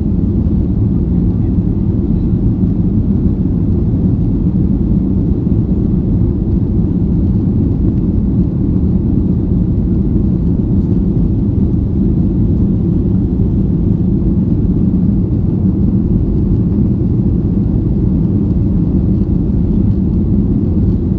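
Boeing 737-800 jet airliner under way, heard inside the cabin as a steady deep rumble of its CFM56 turbofan engines and airflow.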